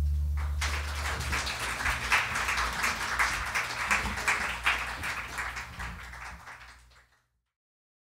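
A small audience applauding, starting about half a second in, over the last low note of the band's final chord dying away; the clapping fades out near the end.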